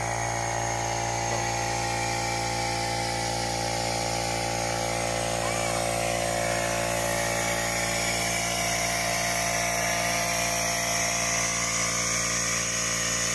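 A small, inexpensive air compressor running steadily with an even motor hum and a high hiss of air, powering a pneumatic fluid extractor that is drawing engine oil up through the dipstick tube.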